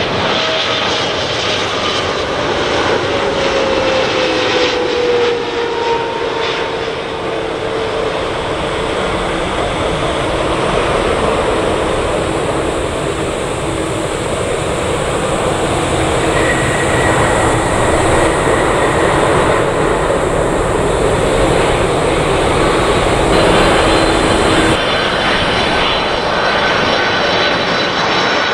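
Boeing 777-300ER's GE90 jet engines on a landing pass: a steady jet noise with a whine that falls in pitch over the first several seconds as the airliner goes by, swelling again as it rolls down the runway. Near the end the sound cuts abruptly to the engines of an approaching Boeing 747-400.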